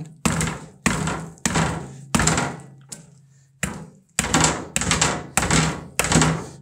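Soft-faced mallet tapping a tight-fitting rubber profile seal (gasket) down into a metal pump guide claw, about ten blows at roughly two a second with a short pause near the middle. Each blow is a dull knock with a brief ring.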